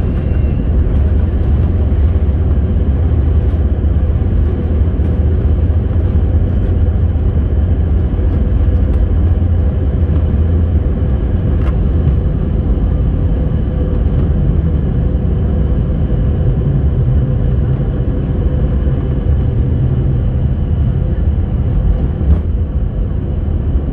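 Jet airliner cabin noise: a steady low rumble of engines and airflow heard from inside the passenger cabin.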